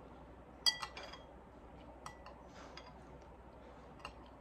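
Metal spoon, glass soup bowl and plate clinking: one sharp, ringing clink about two-thirds of a second in, two quick lighter ones right after, and single light clinks around two seconds and near the end.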